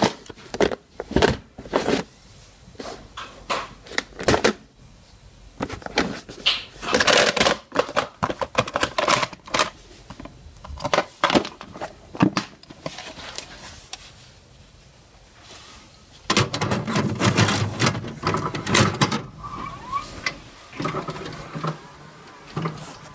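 Clicks and plastic rattles of a VHS cassette being taken out of its clamshell case and handled, then a VCR pulling the tape in and threading it with a steady mechanical whirr about 16 seconds in, followed by a few more clicks as it goes into play.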